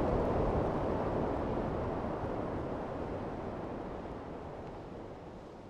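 A steady rushing noise with no distinct tones, fading out gradually.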